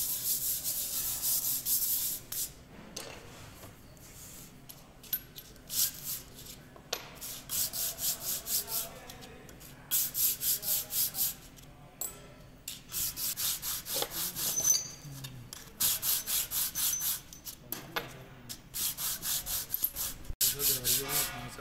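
A metal hydraulic pump part being hand-lapped on abrasive cloth over a flat steel plate: a scraping rasp in quick back-and-forth strokes, about three to four a second, in runs of a few seconds with short pauses between.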